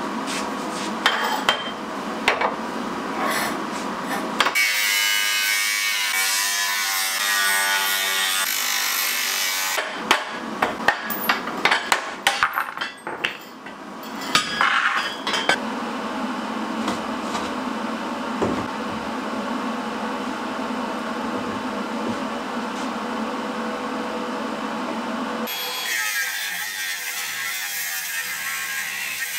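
Rusty steel tube frame being worked: metal clanking, then a run of sharp knocks on metal partway through, and long stretches of steady machine noise. Near the end, an angle grinder's cutting disc cuts through the rusty steel tubing.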